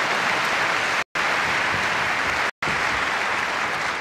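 Tennis crowd applauding steadily after a point, the sound cutting out completely for a moment twice.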